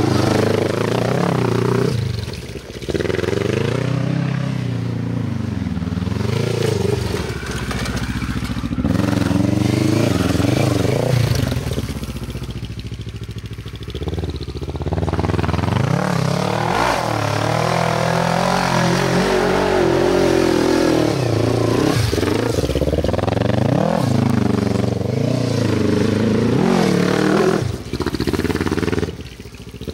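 Sport quad engine revving hard and dropping back over and over as it accelerates and throttles off through tight dirt turns. There are a few short lulls between pulls.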